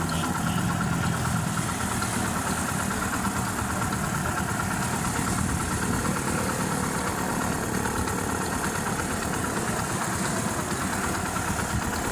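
Freshly rebuilt Honda CD70's single-cylinder four-stroke engine idling steadily at a raised idle. It has new piston, rings, valves and timing chain and is not yet run in, so it won't settle to a slow idle.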